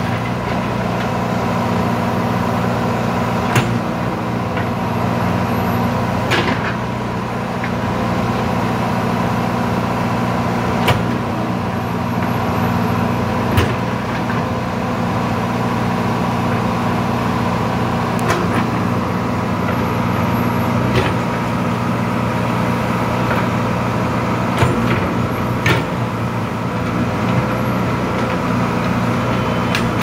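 Kirloskar diesel engine of a 2007 JCB 3DX backhoe loader running steadily while the backhoe works, with a sharp knock every few seconds.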